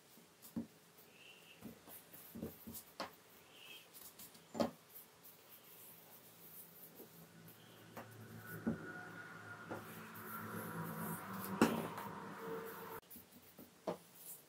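Faint handling sounds of a thin hand-rolled yufka sheet being spread over chopped walnuts in a round metal baklava tray and smoothed down by hand: soft rustling with scattered light taps and clicks, the sharpest about four and a half and eleven and a half seconds in.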